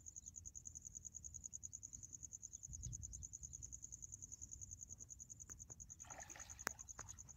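Crickets trilling steadily, a faint, high, evenly pulsed chirping. About six seconds in, a short splash as the hooked fish thrashes at the surface.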